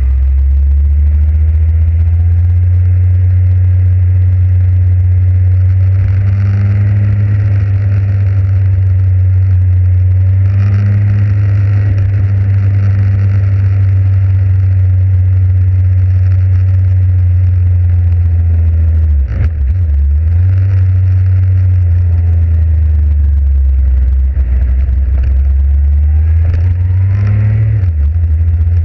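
Motorcycle riding along at steady speed, its engine and road noise making a loud, steady low drone, with a brief dip about nineteen seconds in.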